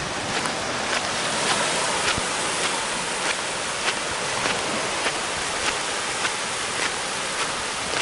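Shallow Pacific surf washing in over a flat sandy beach: a steady hiss of waves, with a light tick repeating evenly about every half second and a bit, in step with walking.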